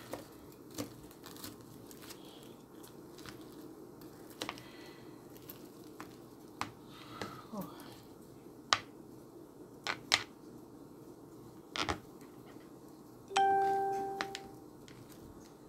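Scattered light clicks and knocks of kitchen utensils and dishes being handled at the stove. About 13 seconds in, a single clear ding rings out and fades over about a second.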